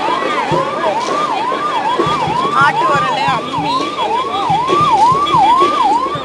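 Electronic siren warble, a loud tone sweeping up and down about twice a second without a break, over the chatter of a crowd.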